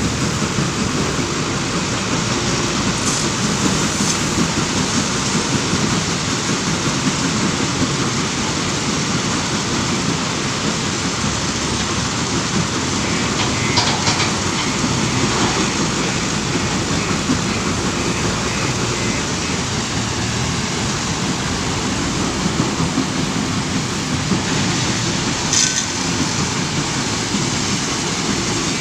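Steady loud mechanical din of a working stone crusher plant and a JCB 530-70 telehandler's diesel engine as it loads crushed stone into a dump truck. A rapid high beeping runs for a few seconds about halfway through.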